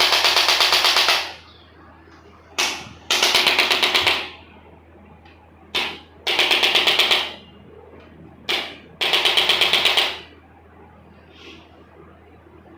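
Handheld percussion device used on the patient's body, firing rapid mechanical clicks in four bursts of about a second each, roughly ten clicks a second. A short single click comes just before three of the bursts.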